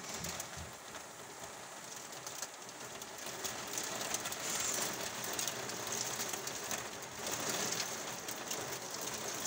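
Hail and heavy rain drumming on a roof window's glass: a dense patter of small impacts that grows heavier about three and a half seconds in.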